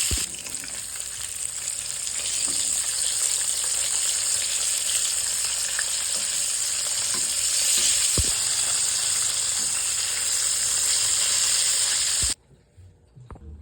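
Food frying in hot oil in a pan, a steady loud sizzle with a few brief low knocks. The sizzle cuts off suddenly about twelve seconds in.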